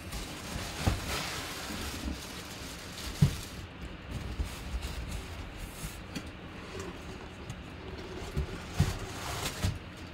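Cardboard box being handled and opened: flaps scraping and sliding against each other, with a few dull thumps, the loudest about three seconds in.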